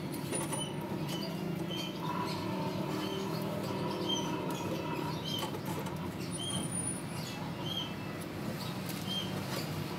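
Slices of bread frying in oil in a nonstick pan on a gas burner: a steady low hiss with light crackles. Short high chirps come about once a second over it.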